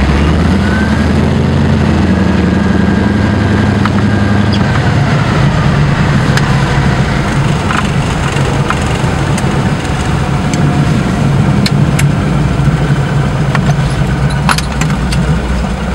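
Floatplane's propeller engine running at low power, heard from inside the cockpit while taxiing on the water after landing. The engine note drops slightly about five seconds in, with scattered light clicks over it.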